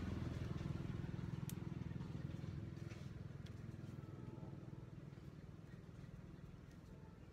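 A low engine drone, steady in pitch, fading away over several seconds, with a few faint clicks.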